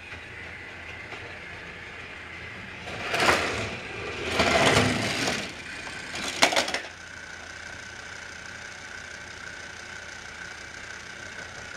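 Small electric motor of a battery-powered TrackMaster toy railway whining steadily. Three loud, noisy bursts of plastic rattling come between about three and seven seconds in, and the whine is a little lower after them.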